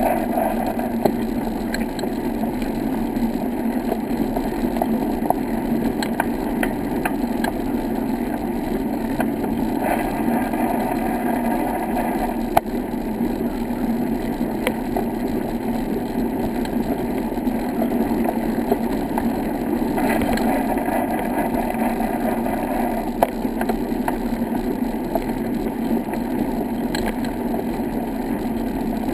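Steady, muffled rumble of riding over a brick-paved path, tyre noise and wind on the camera, with scattered small clicks and knocks from bumps.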